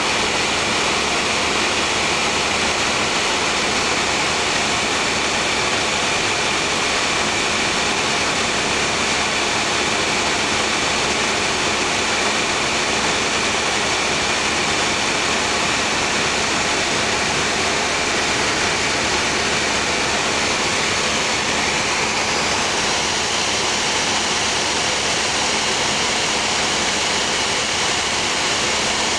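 Steady airplane cabin noise in flight, the engines and rushing air making an even, unbroken drone; the fireworks below make no audible bangs.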